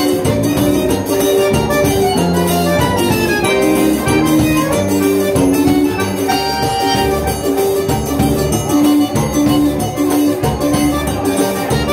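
Scandalli piano accordion playing a stepping melody with a live band, over a steady percussive beat.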